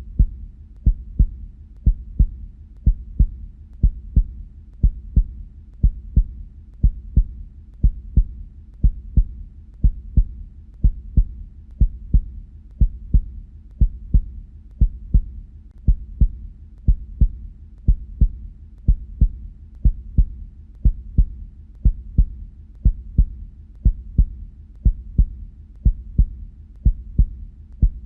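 Heartbeat sounds: a steady, regular lub-dub, two quick thuds together about once a second, the knocking of the heart valves closing.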